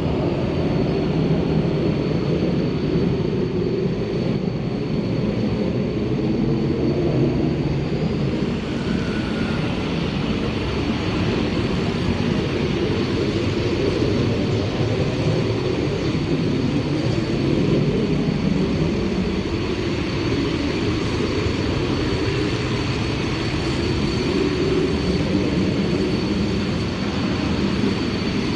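Jet aircraft engines rumbling steadily in the air, with a thin high whine held throughout.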